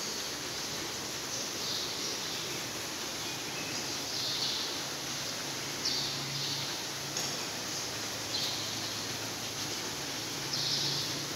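Heavy rain falling on the building, heard from inside as a steady hiss with short louder swells every second or two, and a faint low hum that comes and goes.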